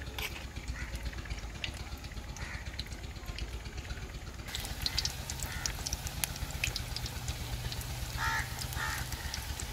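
Vegetable pakora batter frying in hot oil in a steel karahi: steady sizzling with fine crackles, getting louder about halfway through. Two short animal calls near the end.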